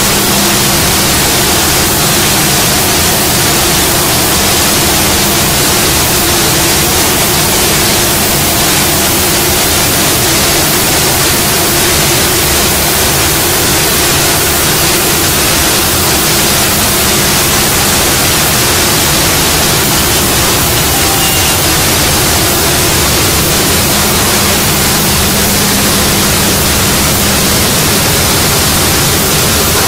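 CNC router spindle milling a door panel: a loud, steady rushing noise of cutter and machine with a low steady hum beneath it.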